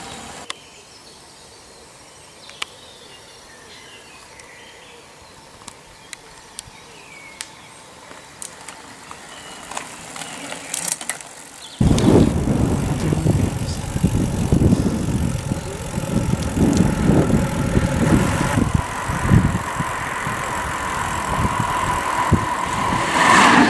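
Racing bicycles passing on a road. The first half is fairly quiet with scattered ticks. About halfway through, a loud, uneven rumble begins abruptly, and a steady whine joins it in the last few seconds.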